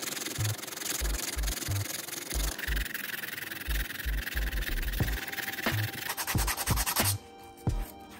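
Sandpaper rubbed back and forth over a hard black plastic panel in quick repeated strokes. The sanding stops about seven seconds in, leaving a few light knocks.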